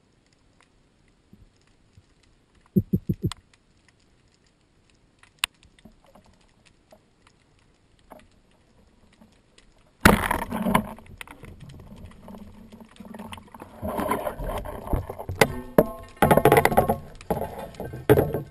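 Underwater near quiet with scattered faint clicks, then about ten seconds in a sudden sharp shot from a rubber-band speargun. It is followed by loud churning water, bubbles and knocking as the speared fish is brought up on the line.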